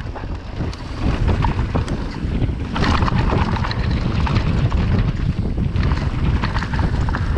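Wind buffeting the microphone of a mountain bike speeding down a dirt downhill track, with the rattle and clatter of the bike and tyres over the rough ground.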